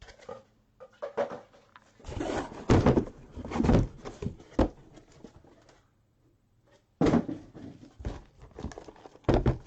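Trading-card boxes and packs being handled on a table: a series of irregular cardboard knocks, thunks and scraping, in two bursts with a short lull between.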